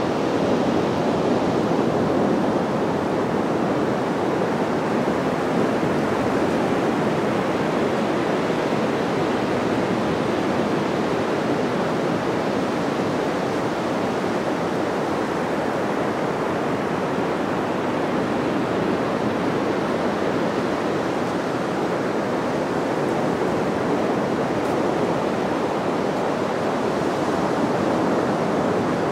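Sea surf breaking on a sandy beach: a steady, even wash of waves.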